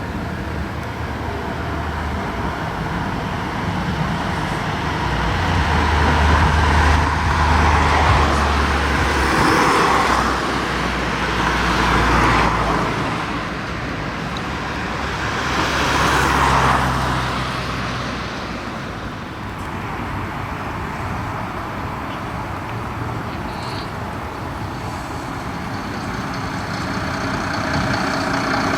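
Road traffic: motor vehicles driving past, engine and tyre noise swelling and fading, loudest from about six to twelve seconds in and again around sixteen seconds.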